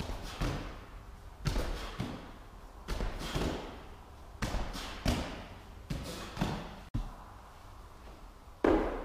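A medicine ball caught and pushed back in quick repeated reactive chest pass throws: pairs of hard slaps of hands on the ball about every second and a half. Near the end comes a single heavier thud of feet landing from a bodyweight jump squat, the loudest sound.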